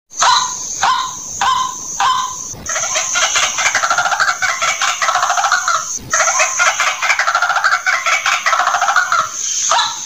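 White-breasted waterhen calling: a harsh note repeated about twice a second breaks, about two and a half seconds in, into a fast rattling chatter. The chatter stops briefly near six seconds, picks up again, and gives way to the slower repeated notes near the end.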